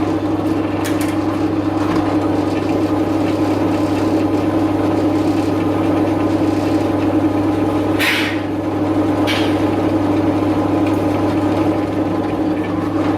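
Metal lathe running steadily while a drill bit bores out a steel bearing spacer, with two brief scraping hisses of cutting about 8 and 9 seconds in.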